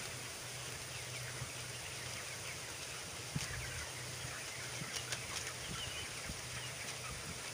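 A large flock of broiler chickens peeping and chirping: many short, scattered falling calls over a steady low machinery hum.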